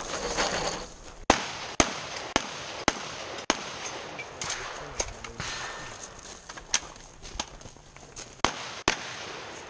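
A string of gunshots from a long gun: five quick shots about half a second apart starting a little over a second in, then several more spaced-out shots, each followed by a short echo.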